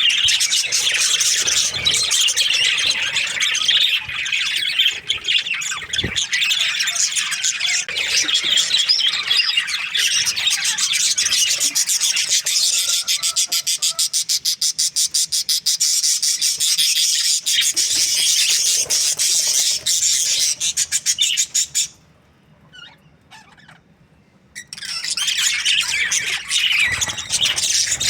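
A flock of budgerigars chattering, a dense, unbroken mass of high chirps and warbles. The chatter drops out for about three seconds about three quarters of the way through, then resumes.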